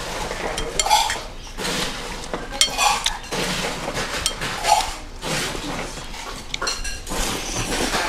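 A metal spoon clinking against a ceramic noodle bowl several times as broth and noodles are stirred and scooped, with slurping of noodle soup in between.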